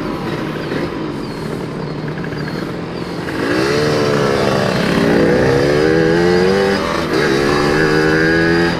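Yamaha RX-King two-stroke single engine with an aftermarket exhaust, heard from the rider's seat. It runs lightly at first, then about three seconds in revs up hard and accelerates, its pitch rising and dropping back at each of two upshifts before holding high.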